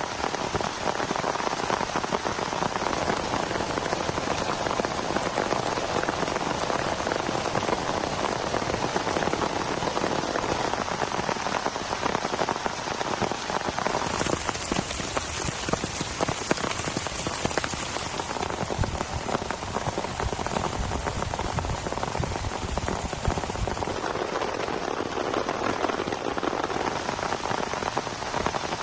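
Heavy rain falling steadily, a dense patter of drops striking the ground and nearby surfaces. A brighter hiss rises for a few seconds about halfway through.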